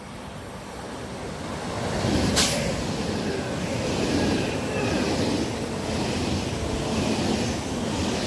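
ICE high-speed electric train passing close beside the platform. Its rumble builds as it approaches, a short sharp hiss comes as the front draws level about two seconds in, then a steady rush of wheels on rail with a swell about once a second as the cars go by.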